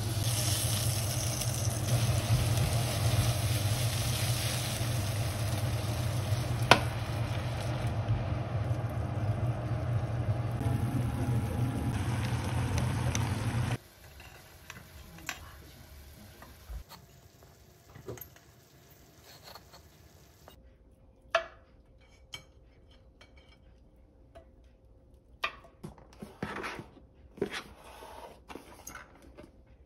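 Chicken piccata sizzling in a frying pan: a steady hiss over a low hum, with one sharp clink about seven seconds in. It cuts off abruptly about halfway, giving way to light clicks and knocks of vegetables and dishes being handled on the counter.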